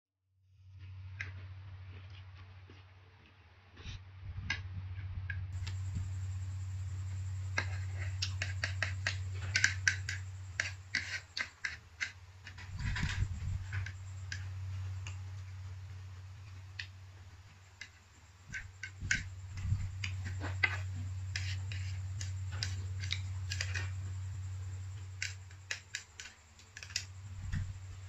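Eating sounds: plastic chopsticks clicking and scraping against a plate while fried noodles with meat and egg are picked up and chewed, in irregular bunches of sharp clicks over a steady low hum.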